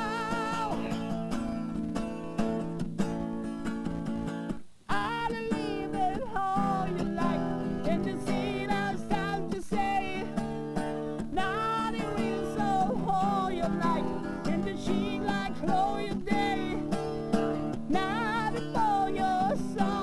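Acoustic guitar music: sustained chords under a melody whose notes bend and waver. The music drops out briefly about five seconds in, then resumes.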